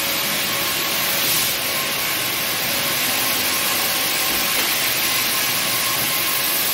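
Rows of Busi Giovanni automatic circular sock-knitting machines running together: a steady mechanical whir with a strong high hiss and faint steady whining tones.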